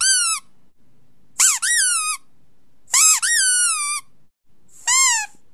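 A series of four high-pitched squeals, about one and a half seconds apart, each sliding up and then down in pitch; the middle two come as quick double squeals.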